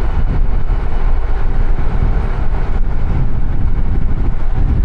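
Loud, rough rumble of wind and road noise on the microphone of a bicycle riding along a highway, with no distinct event standing out.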